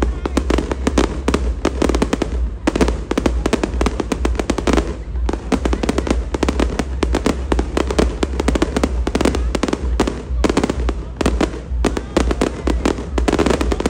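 Aerial fireworks display going off in rapid, nearly continuous bangs and crackles, many a second, with a few short lulls.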